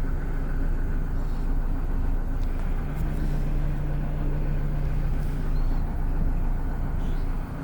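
GM New Look bus's diesel engine running steadily, a continuous low drone with an even hum.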